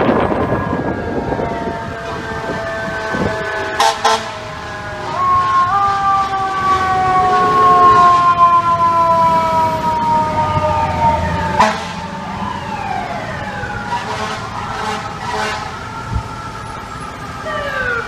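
FDNY fire engine's siren wailing in street traffic: a long tone whose pitch falls slowly and cuts off sharply about halfway through, followed by several shorter falling sweeps.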